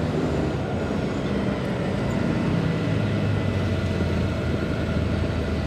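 Oshkosh military tactical truck driving, its diesel engine running steadily with a low drone.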